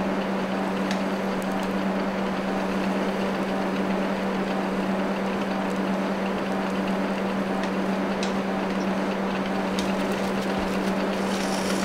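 Potter's wheel motor running with a steady low hum while clay is thrown on the spinning wheel head, with a few faint ticks.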